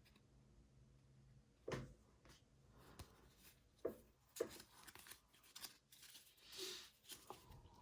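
Faint, scattered taps and brushing sounds of trading cards being handled and flipped through a stack, one after another.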